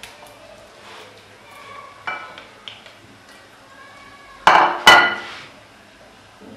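Glass bowl clinking and knocking as it is handled: a few light clinks about two seconds in, then two loud, ringing knocks half a second apart a little past the middle.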